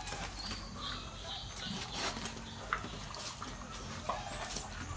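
Faint farmyard animal sounds, with a few scattered high bird chirps.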